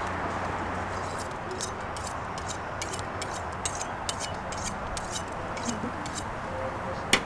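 Steady outdoor hiss with scattered sharp, high ticks from about a second in, irregular rather than rhythmic, and one louder click near the end.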